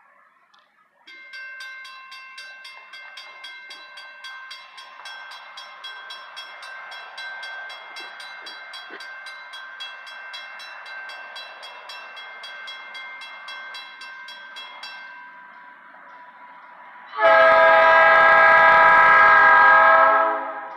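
Grade-crossing warning bell starts up about a second in, ringing in rapid, even dings, and stops after about fifteen seconds. Near the end, an approaching GE B23-7 diesel locomotive sounds one long horn blast of about three seconds, much louder than the bell.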